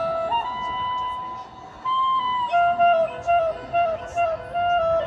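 Marching band wind section playing a slow melody of held notes that step up and down, without drums. There is a brief softer moment about a second and a half in.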